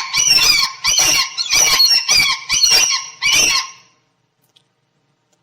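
Gull calling: a rapid series of short, high, pitched calls that stops about four seconds in.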